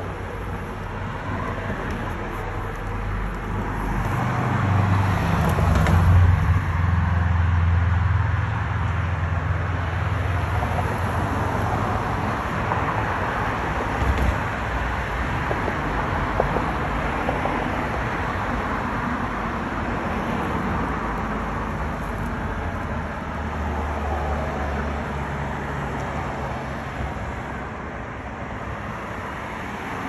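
Road traffic on a city street: steady tyre and engine noise from passing cars, with a deeper rumble as vehicles go by, loudest about five to eight seconds in and again briefly around twenty-five seconds in.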